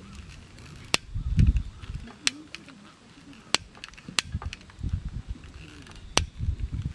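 Sharp clicks and knocks at irregular intervals, with low thuds between them, as camping gear is handled and set up.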